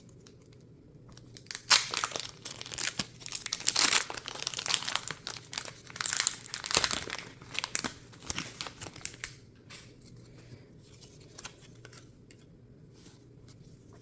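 Plastic wrapping of Pokémon card packaging being crinkled and torn open by hand. It is a dense run of crackling and ripping for most of the first two-thirds, then only light rustling.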